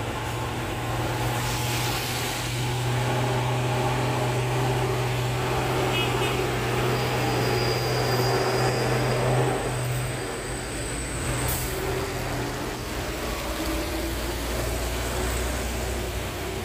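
Heavy diesel trucks passing on a wet road, engines running steadily under load, with tyre noise on the wet surface. About two-thirds of the way through the engine note drops away, and a deeper engine note takes over near the end as a truck passes close.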